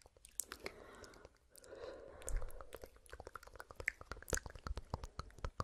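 Close-miked ASMR trigger sounds: a rapid, irregular run of small clicks and crackles.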